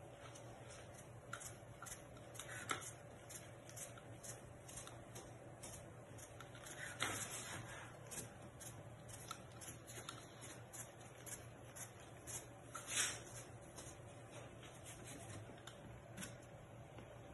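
An alcohol-dampened wipe rubbing back and forth over a flexible steel build sheet: soft, repeated rustling and swishing strokes, with a few louder brushes about 3, 7 and 13 seconds in.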